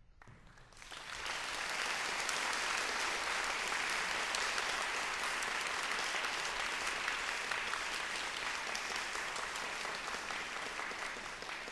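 Audience applauding: the clapping swells up about a second in, holds steady, and eases slightly near the end.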